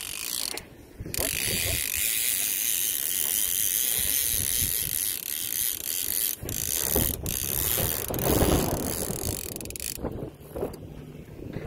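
Spinning reel's drag buzzing continuously as a hooked fish strips line off it, with a short break about half a second in, two brief breaks in the middle, and a stop about ten seconds in. A low rumble of handling noise near the end.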